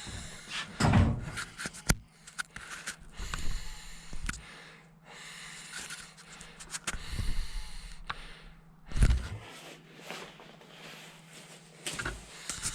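Irregular clicks, knocks and rustling, with heavy low thumps about a second in and again about nine seconds in.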